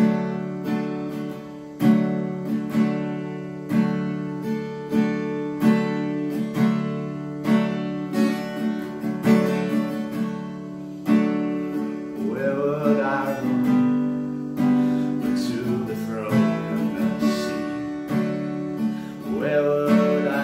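Yamaha acoustic guitar strummed in a steady rhythm, capoed chords ringing. A man's singing voice comes in about twelve seconds in and carries on over the strumming.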